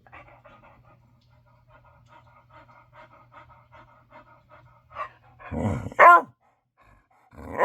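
Pet dog vocalising: a run of soft, quick, rhythmic grumbling sounds, then two loud barks about six seconds in and another at the end. She is barking for attention after being fed and let out to potty.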